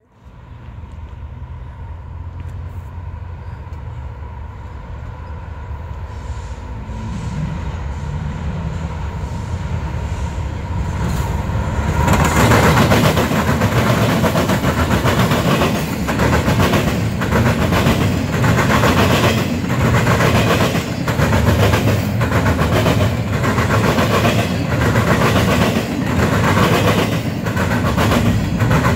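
Double-stack intermodal freight train approaching and passing. The locomotive's diesel engine grows louder and peaks as it goes by about twelve seconds in. The loaded well cars then roll past with a steady rhythmic clatter of wheels over the rail joints.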